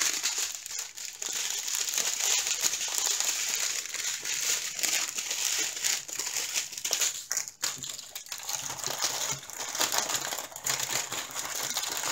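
Thin plastic packaging crinkling and rustling as a strip of small bagged diamond-painting drills is handled and slid across a plastic-covered canvas. There is a brief lull about seven and a half seconds in.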